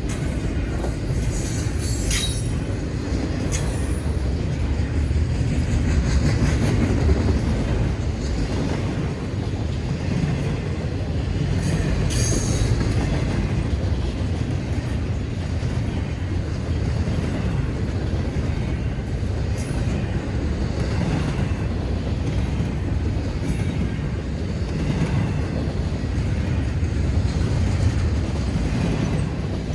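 Freight train cars rolling steadily past, a continuous rumble with wheels clattering over the rails, and brief high wheel squeals about two seconds in and again around twelve seconds.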